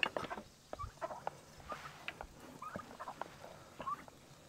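Poultry calling softly: a scatter of short, quiet chirps and clucks, with light knocks and taps among them.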